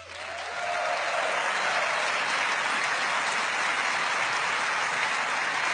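Large audience applauding, swelling over the first second and then holding steady, while the last soft tone of background music fades out at the start.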